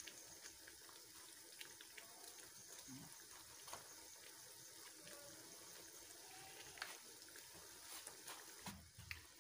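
Blended tomato, chilli, garlic and ginger masala sizzling and bubbling faintly in hot oil in a frying pan, with a few small pops.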